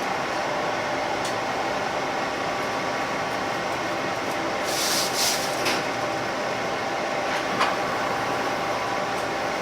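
Cabin noise inside a JR Shikoku 2000-series diesel railcar under way: a steady rumble with a faint hum. A couple of short hisses come about five seconds in, and a single click comes a little after seven and a half seconds.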